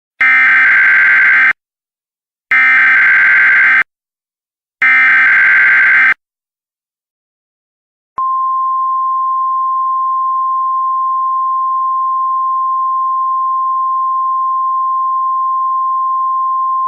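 Emergency Alert System tornado warning signal. It opens with three identical bursts of SAME digital header data, each a harsh warbling screech about a second and a half long, separated by short silences. After a two-second pause a steady single 1050 Hz warning tone begins and holds unbroken.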